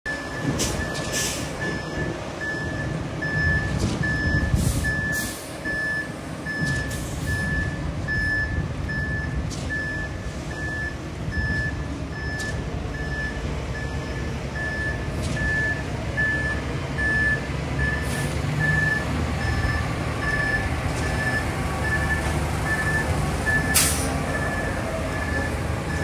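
Concrete mixer truck's reverse alarm beeping at a steady pace, about three beeps every two seconds, over the low running of its diesel engine. A few short, sharp noises break in now and then.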